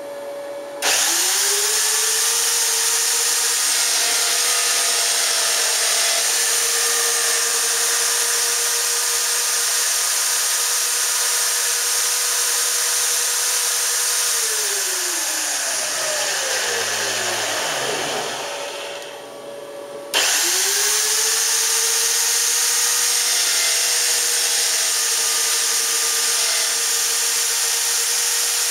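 High-speed spindle motor of a homemade CNC machine drilling shelf-pin holes in a chipboard cabinet panel. It starts suddenly about a second in and runs with a steady high whine. Around the middle it winds down with a falling pitch, then starts again suddenly about twenty seconds in.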